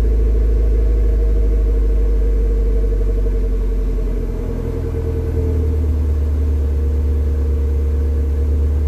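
Stock 1.8-litre four-cylinder Mazda Miata engine idling through a Borla aftermarket exhaust, heard at the tailpipes as a steady low drone. About four to five seconds in, the low note steps up a little.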